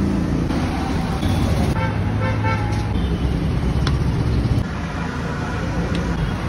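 Steady road-traffic rumble of passing vehicles, with a few short horn toots around two seconds in.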